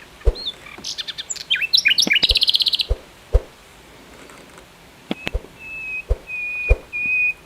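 Songbirds calling: a burst of quick, varied chirps ending in a fast trill, then after a pause a clear whistle note repeated several times, each held about half a second. A few sharp knocks sound in between.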